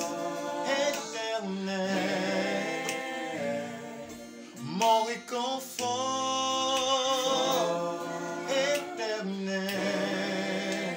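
A small mixed group of men's and women's voices singing a French gospel worship song in harmony, holding long wavering notes, with a short louder burst about halfway through.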